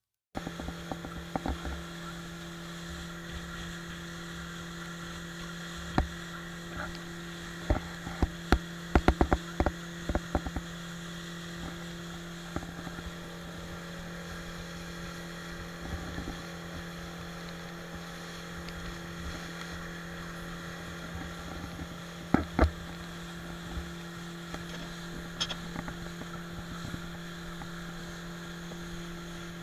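Outboard motor running at a steady, unchanging speed, a constant hum. Scattered thumps and knocks cut through it, a cluster of them about a third of the way in and a couple more later.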